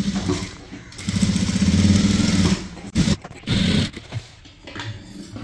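Sewing machine running a top stitch along a blouse seam: one steady run of about a second and a half with a fast, even needle rhythm, then two brief short runs.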